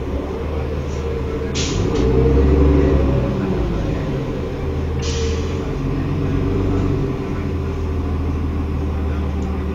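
Cummins ISL diesel engine of a 2005 New Flyer D40LF transit bus running, its note rising and getting louder from about a second and a half in, then dropping back a couple of seconds later. Two short hisses come partway through.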